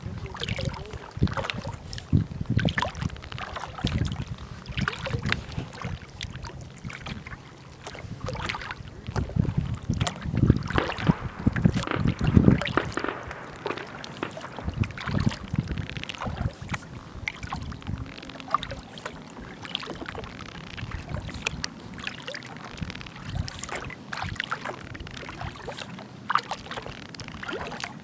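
Small waves lapping and splashing against a plastic kayak hull on the move, an irregular run of little slaps and knocks, louder for a few seconds around the middle.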